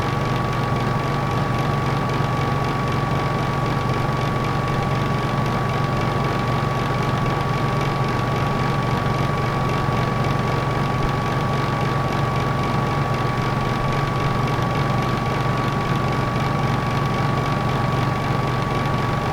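Traffic light's electrical buzz: a steady low hum with a thin, steady high tone above it, over an even hiss.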